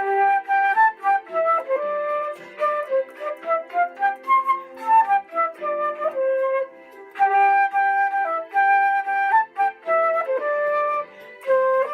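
Electronic keyboard playing a simple melody in separate single notes over a lower held accompaniment, with short pauses between phrases.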